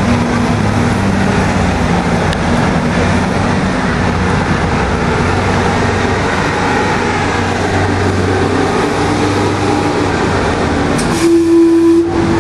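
Gastown Steam Clock venting steam with a steady hiss over a faint low hum. About eleven seconds in, its first steam-whistle note starts and holds: the opening of the clock's hourly chime.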